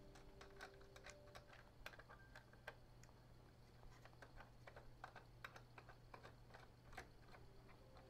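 Faint, irregular small clicks and taps of hardware being handled inside an open PC case, over a low steady hum.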